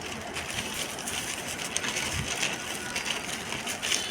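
Irregular rustling and handling noise of packaging being unwrapped, with no horn sounded.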